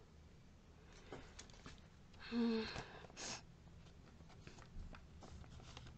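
Quiet room with a few faint taps and clicks of small product containers being handled and set down. About two seconds in a woman makes a short vocal sound, followed by a quick breath.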